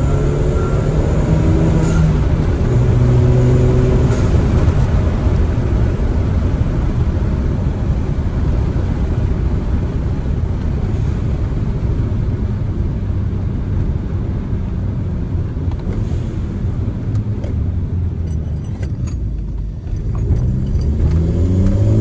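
Turbocharged Volkswagen four-cylinder with an open downpipe cutout, heard from inside the cabin while driving: a steady engine drone over road noise. Near the end the level dips briefly, then the engine pulls again with its pitch rising.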